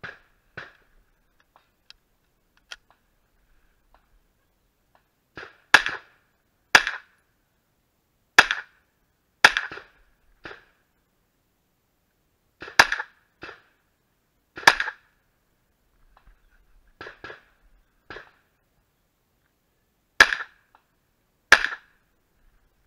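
Pistol-caliber carbine firing at a shooting stage: about a dozen sharp shots, alone or in pairs about a second apart, with pauses of a few seconds between groups. A few light clicks come in the first seconds, before the firing starts.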